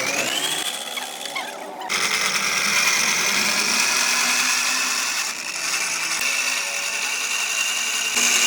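An electric power tool spinning up with a rising whine. About two seconds in it gets louder and harsher, then runs on with a steady high whine that creeps slightly higher.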